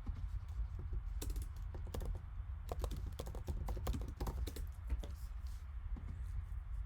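A run of quick, irregular light clicks and taps, densest in the middle, over a steady low hum.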